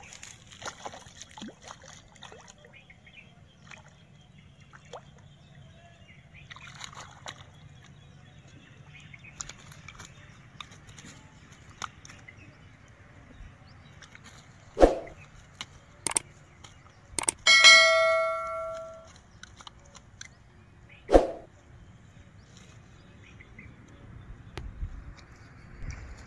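Quiet outdoor background with light rustling, then a few sharp knocks and one clear metallic ding that rings out and fades over about a second and a half.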